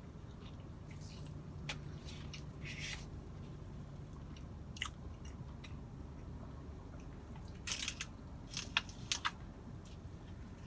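Close-miked chewing and biting of a fast-food sausage biscuit sandwich, with scattered soft crackles and a brief run of sharper clicks about eight to nine seconds in.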